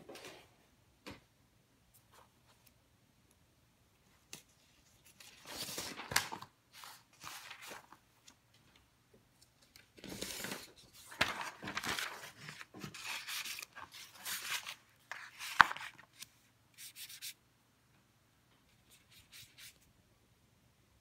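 Watercolour paper rustling and rubbing as it is handled, in irregular bursts with quiet gaps, and one sharp click about three-quarters of the way in that is the loudest sound.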